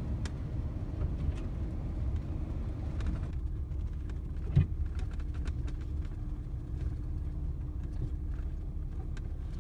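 Truck driving over a snowy trail: a steady low rumble of engine and tyres, with a single sharp knock about halfway through and a faint steady hum in the second half.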